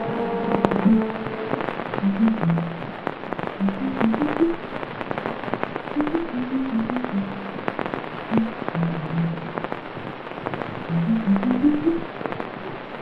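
Dense crackling and popping throughout, over a slow melody of short, low notes that step up and down.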